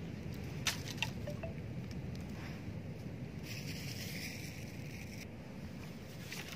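Steady low wind rumble on the microphone, with two faint clicks about a second in and a brief rustle around the middle.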